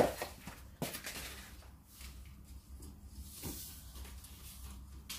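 Horizontal window blind slats being handled: a sharp knock at the start, another click a little under a second later, then light rattling and rustling as the slats are worked.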